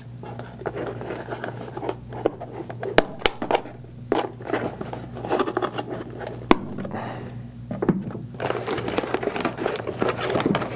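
Scissors cutting two plastic tie straps on a cardboard box insert, with a sharp snip about three seconds in and another about six and a half seconds in. Cardboard scraping and rustling in between, busier near the end as the insert is handled.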